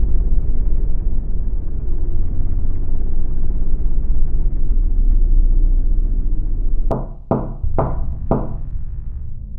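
A low, rumbling drone of dark ambient film score, then four sharp knocks on a door, about two a second, near the end.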